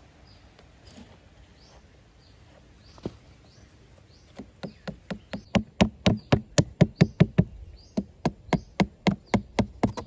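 A small hatchet's head hammering into a cardboard box floor laid on soil: a run of sharp knocks about three a second, starting about four seconds in, with a short pause near the eight-second mark.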